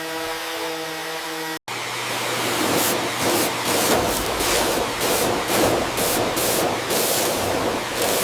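A motor runs with a steady, multi-tone hum, then cuts off abruptly. After that, a loud spraying hiss comes in short, repeated pulses, roughly two a second.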